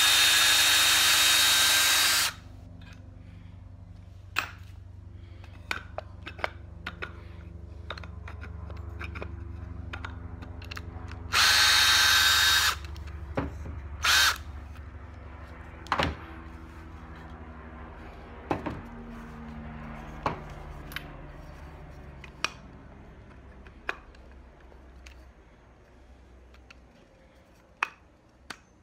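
Ryobi 18-volt cordless drill running at full speed with a high motor whine, backing pocket-hole screws out of a joined pine block. It runs in two spurts, one of about two seconds at the start and a shorter one about eleven seconds in, with a brief blip just after. Sharp clicks and knocks of handling the block and screws come between the spurts over a low steady hum.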